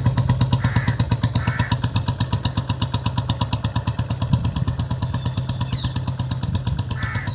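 2004 Royal Enfield Bullet Electra's single-cylinder engine running at a steady, even thump of about eight beats a second, through a free-flow bend pipe and mesh silencer.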